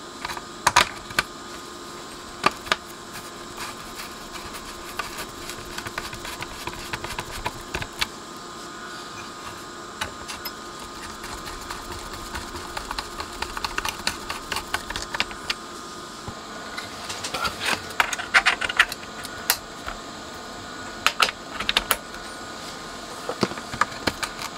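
Scattered clicks, taps and light rattles of small tools and metal parts being handled on a workbench, with a flurry of rapid clicking about two-thirds of the way through, over a steady faint hum.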